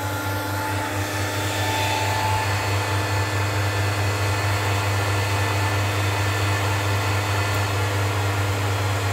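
Cooling fans of a 1 kW VHF linear amplifier test setup running steadily while it transmits at about 1.5 kW, over a strong steady low hum.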